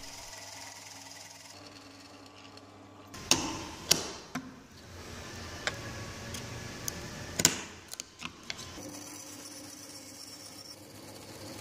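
Pillar drill running faintly as it bores into a small oak block, then a handful of sharp knocks and clicks of wood and tools being handled, then a bandsaw running faintly from about nine seconds in.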